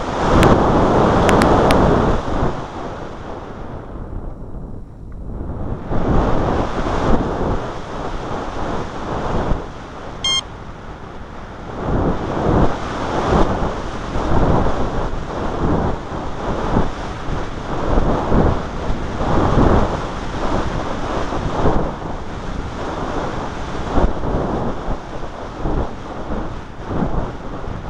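Heavy wind buffeting the microphone in uneven gusts, with one short electronic beep about ten seconds in.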